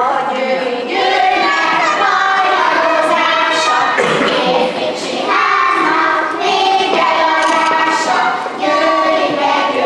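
A group of young children singing a song together in unison, in phrases with short breaths between them.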